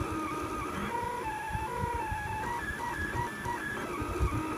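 Kossel delta 3D printer's stepper motors whining as the effector moves during a print, the pitch stepping up and down every fraction of a second as moves change speed and direction, with soft irregular knocks from the mechanism.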